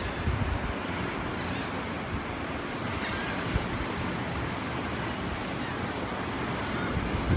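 Steady wash of surf breaking on the shore, heard from high above, with wind buffeting the microphone. A few faint gull calls sound about three seconds in.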